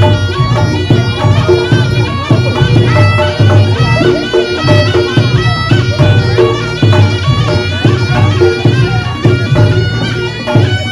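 Reog Ponorogo gamelan music: a slompret, the ensemble's double-reed shawm, plays a shifting melody over a steady beat of drums and gongs. The shawm cuts off abruptly at the very end.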